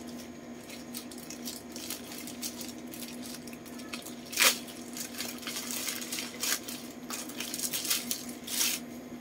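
Plastic courier pouch crinkling and tearing as it is pulled open by hand, with one sharp rip about four and a half seconds in and a few more crackling rips near the end.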